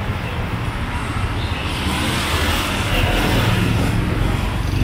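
Street traffic running steadily, with a vehicle passing close: the noise swells from about two seconds in and is loudest through the second half.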